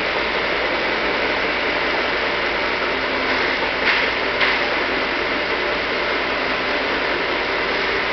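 Vertical milling machine running steadily with a faint high steady tone, and two short knocks about four seconds in.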